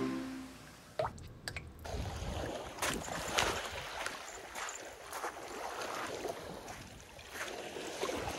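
Sea water lapping and splashing at the edge of a shallow beach, with irregular short splashes about once a second.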